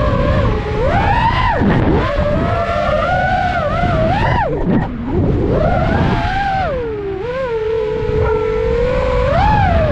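FPV quadcopter's brushless motors whining, the pitch swooping up and down with each throttle change, over a steady rush of wind and prop wash.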